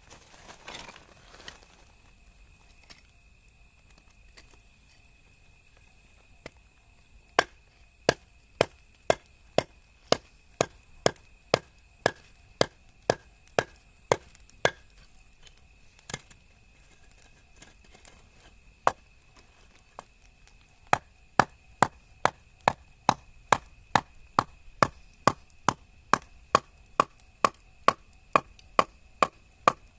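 Wood being chopped, likely kindling split for the fire: sharp, evenly spaced strikes at about two a second, in two runs with a pause of several seconds between them.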